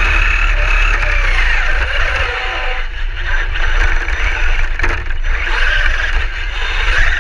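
Radio-controlled car's motor and drivetrain whining as it drives, heard from a camera mounted on the car, the whine rising and falling in pitch with the throttle over a steady low rumble of vibration. About three to five seconds in the whine drops away and a few knocks come through as the car runs over rough snow and ice.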